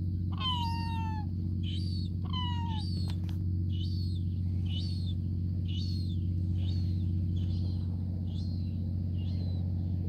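Gulls calling: two longer, drawn-out calls in the first three seconds, then a young gull begging to be fed with a run of short, high, thin calls about once a second. A steady low hum runs underneath.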